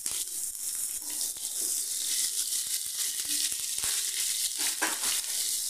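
Hot oil sizzling and crackling steadily in a frying pan: a tadka (tempering) of mustard seeds and cumin, with chopped green chillies just added.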